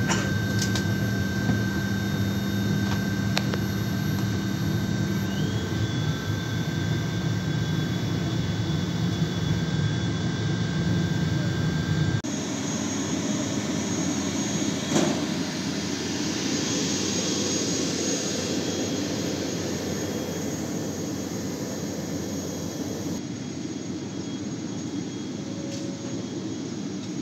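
ATR 72-600 turboprop engine and propeller heard from inside the cabin during taxi: a steady drone with a few fixed whining tones. About twelve seconds in it cuts to a steady, hissier turbine noise with a high whine, out on the apron by the parked aircraft, which drops in level near the end.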